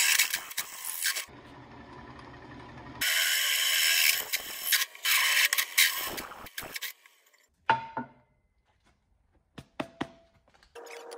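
A drill press boring a large hole through a steel plate: two long spells of harsh cutting noise from the bit, with a quieter stretch between them. Near the end come a few sharp knocks as the plate is handled.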